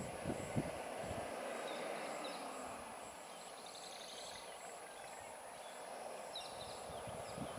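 Outdoor ambience: a steady rushing noise with a high, evenly pulsing chirp about two to three times a second, a few short high chirps and trills, and some low thumps near the start and again near the end.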